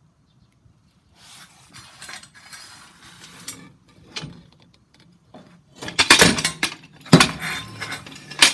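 Steel bumper brackets being handled: metal scraping and rustling at first, then several loud clanks of metal parts knocking together or being set down, in three bunches over the last few seconds.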